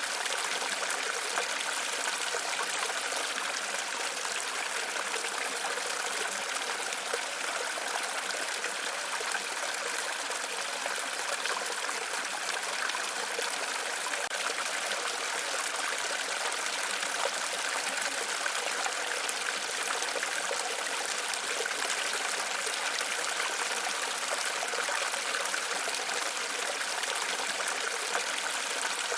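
Waterfall with water splashing and flowing over rocks in a steady, unbroken rush.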